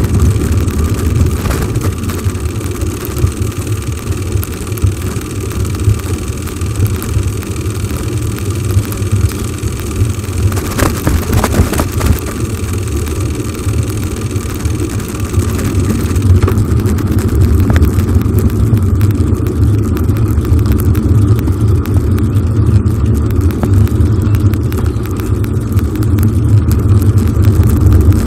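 Wind rumbling over the microphone of a phone carried on a moving bicycle, mixed with the bicycle tyres rolling on asphalt. The rumble is steady and low.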